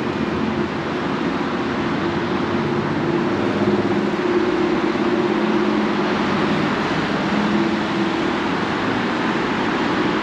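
City road traffic: a steady wash of tyre and road noise with the low hum of engines, swelling a little after the first couple of seconds.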